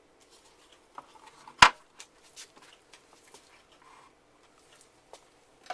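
Small clicks, taps and light rustles of hands handling the alarm box and its parts, with one sharp knock about one and a half seconds in.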